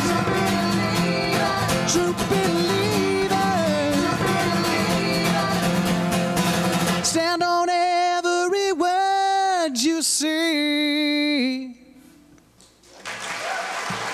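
A man singing to strummed acoustic guitar, ending a song. About seven seconds in the guitar stops and he holds a final wordless note alone, bending and wavering in pitch, until it cuts off near twelve seconds. After a brief hush, audience applause starts near the end.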